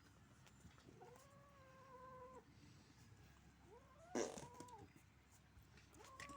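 A kitten growling to guard its food. Under a low, continuous growl come two drawn-out warning yowls, one about a second in and one around four seconds. A sharp, loud burst cuts into the second yowl, and another yowl starts near the end.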